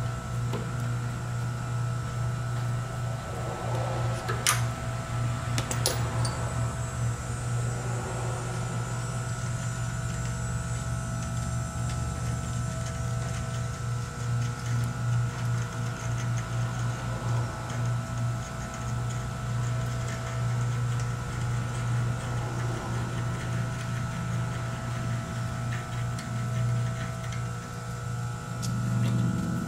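Hand tapping of a threaded hole in a cast axle bearing hub: a tap and tap wrench are worked and handled, with two sharp metal clicks a few seconds in, over a steady low hum.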